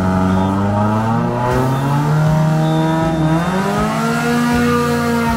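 Several race cars' engines revving on the start line, the nearest a Suzuki GTi hatchback. Their pitch sags for a few seconds, then climbs again about three and a half seconds in.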